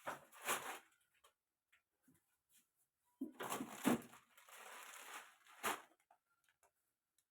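Rustling and knocking of objects being handled, in two spells about three seconds apart; the second has a steady hiss lasting about a second.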